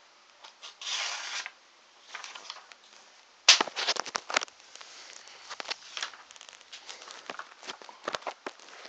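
Paper being cut and handled with a Gerber pocket knife: a short rasping slice about a second in, then a sharp crack about three and a half seconds in followed by quick crackling and crinkling of the paper.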